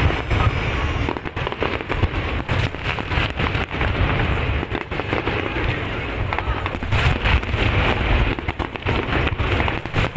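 Aerial firework shells bursting in rapid succession, a dense, continuous run of booms and crackling.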